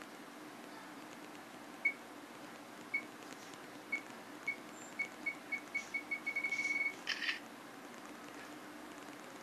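Smartphone camera self-timer beeping as it counts down: single high beeps about once a second, coming faster and faster into a rapid run, then the shutter sound as the photo is taken.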